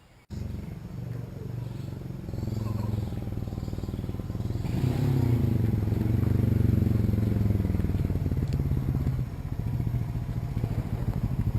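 A small engine running with a rapid, even firing beat. It starts suddenly, grows louder over the first few seconds, then runs on steadily.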